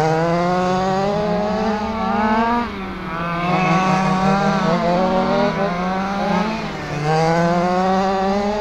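Motors of quarter-scale RC sprint cars racing on an oval. Their pitch climbs down each straight and drops as they back off for the turns, about four times, with more than one car heard at once.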